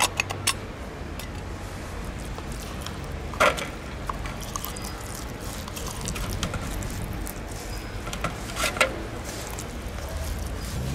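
Wet cat food being tipped from a tin can onto a plastic plate: a few sharp clicks and knocks of the can and food against the plate, loudest about three and a half seconds in and again near nine seconds, over a steady low rumble.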